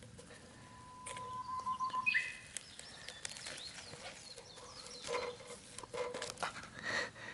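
Charred, papery husk leaves of a grill-roasted bamboo shoot being torn and peeled back by hand, a run of dry crackles and rustling tears that begins about a second in.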